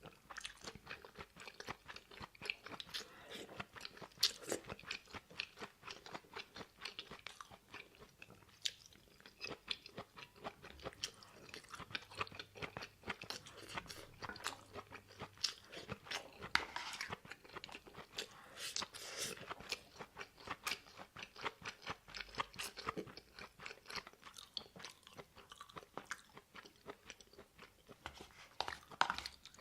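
A person chewing food close to the microphone, with frequent small, irregular crunches and mouth clicks.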